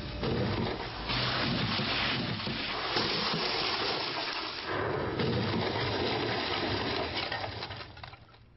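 Smart car crashing into a 20-tonne concrete block at about 70 mph on a wet road: a long rushing noise of water spray and smashing debris that fades out near the end.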